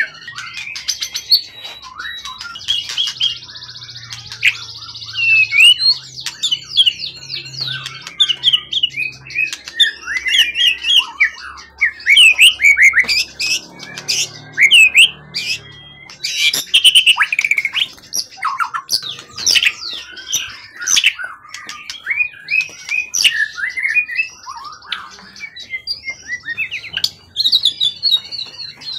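White-rumped shama (murai batu) singing without a break: a long, varied song of quick chirps, sweeping whistles and harsh notes.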